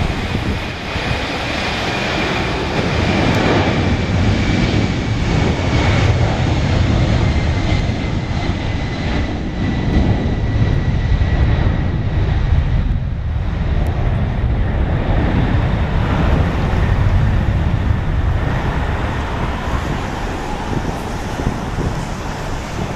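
Boeing 767-300ER's twin jet engines at takeoff thrust during the takeoff roll: a loud, steady rumble with a high fan whine that slowly falls in pitch as the jet passes.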